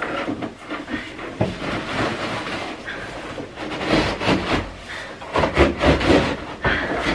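Handling noise: rustling and irregular light knocks as a cardboard box and plastic parts are moved about, busier in the second half.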